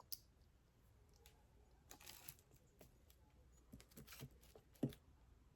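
Faint handling noise from small jewelry tools: a few light clicks and a brief soft rustle, with a sharper tick near the end.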